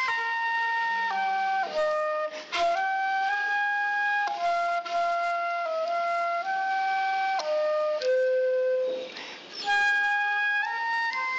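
Solo flute playing a slow melody of long held notes, one note at a time, with two short breaks between phrases. The playing is plain and somewhat unpolished, by an amateur who had not played for decades.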